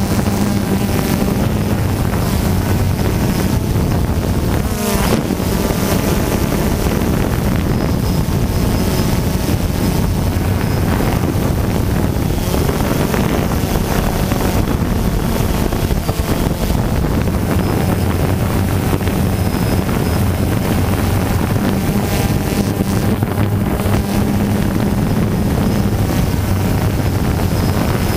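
Quadcopter drone's electric motors and propellers whirring steadily in flight, heard from the camera on the drone itself, with wind buffeting the microphone. The hum shifts a little in pitch now and then as the drone manoeuvres.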